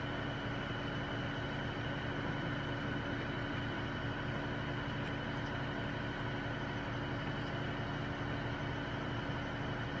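Crane engine running steadily, a constant unchanging drone.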